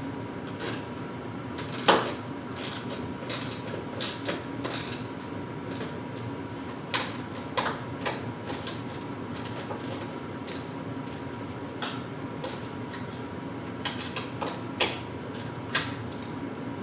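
Scattered metallic clicks and clinks of a 7/16 wrench working bolts on garage door rail brackets, coming in short clusters at irregular spacing, with a louder clink about two seconds in.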